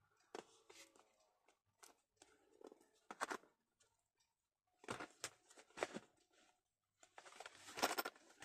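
Faint handling noises of paper being laid and pressed onto a vanity case as it is glued: scattered light taps and rustles, with a busier run of rustling near the end.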